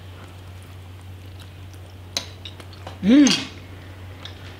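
A man chewing a mouthful of soft boneless pork in gravy, with small mouth clicks and one sharper click a little past two seconds in. About three seconds in comes a short hummed "mmm" of enjoyment that rises and falls in pitch.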